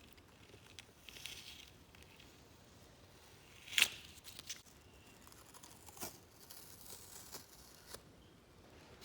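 Faint handling sounds: light rustling with a few small clicks and taps, the sharpest just under four seconds in.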